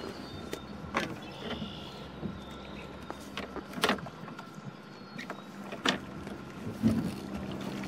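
Several light clicks and knocks of metal carabiners being handled against the plastic pad eyes and hull of a kayak, the sharpest about four seconds in, over a faint steady hum.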